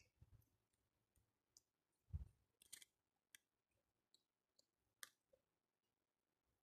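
Near silence with faint, scattered small clicks and a soft low thump about two seconds in: the quiet sounds of eating by hand from a plastic plate.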